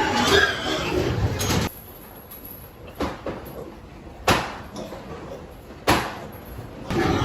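Pigs grunting and squealing for the first second or so, then three sharp knocks a second or more apart, and more animal noise near the end.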